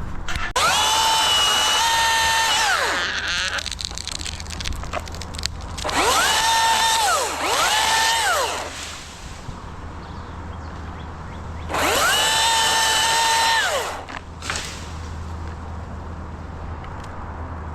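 Two-stroke chainsaw revved up to full throttle four times, each burst climbing quickly, holding steady for one to two seconds and dropping back to idle; the second and third come close together.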